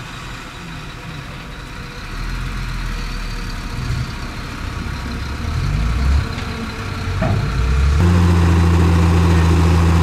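Heavy diesel earthmoving engine running, its pitch rising and falling for a few seconds, then running louder and steady from about eight seconds in.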